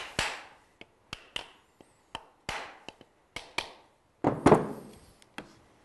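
Wooden mallet tapping a wooden round moulding plane, a series of short, light knocks on the plane's heel and wedge to set the iron for a finer cut, with a louder cluster of knocks about four and a half seconds in.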